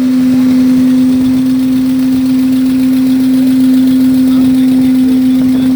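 RV engine running at a steady speed during a test run, with one strong, steady drone that does not change.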